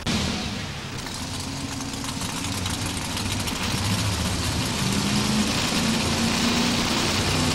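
Modified 4x4 pulling truck's engine idling, its pitch shifting a little as it waits at the sled hitch.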